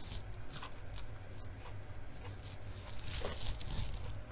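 Close-miked chewing of crisp lettuce: wet crunches and mouth clicks, a few near the start and a thicker run about three seconds in, over a steady low hum.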